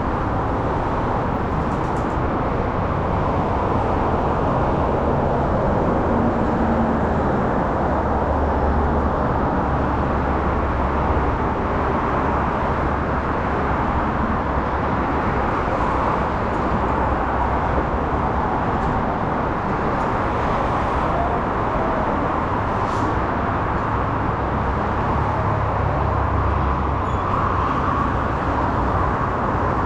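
Yamaha YZF-R6 inline-four engine with a full-system exhaust running steadily on the move, without hard revving, under a constant rush of wind and road noise.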